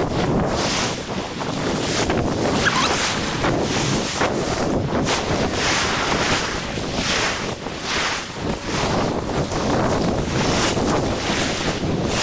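Wind buffeting the microphone over small surf breaking and washing up the beach, a loud rushing noise that swells and eases irregularly.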